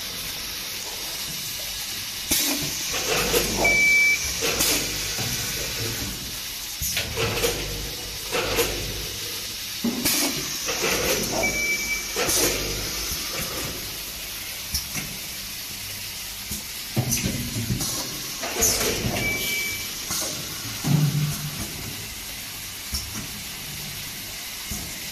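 Automatic cup filling and sealing line running, with repeated bursts of pneumatic air hiss and mechanical clunks over a steady machine hum. A short high beep sounds three times, about every eight seconds.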